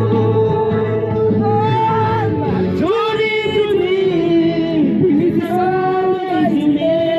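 Music with singing: a voice holding long notes and sliding between pitches over a steady accompaniment.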